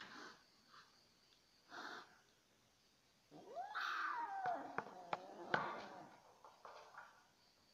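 F1 Asian leopard cat hybrid kitten giving one pitched yowl about three and a half seconds in, rising and then falling in pitch. A few sharp clicks follow it, and two short breathy sounds come earlier.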